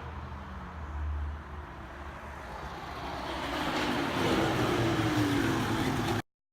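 Yamaha DT 125 two-stroke single-cylinder motorbike engine running. It gets steadily louder from about two and a half seconds in, then cuts off abruptly near the end.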